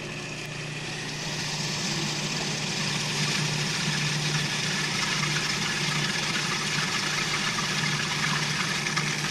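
Cuisinart food processor motor running steadily, blending an avocado-basil dressing while olive oil is poured in through the feed tube. The whir gets a little louder and brighter over the first few seconds, then holds steady.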